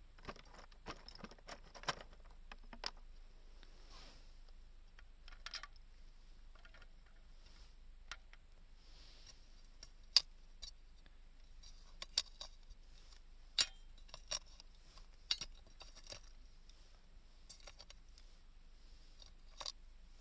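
Scattered sharp clicks and light taps at irregular intervals, as of small tools and a thin metal can being handled and worked by hand; the sharpest click comes about halfway through.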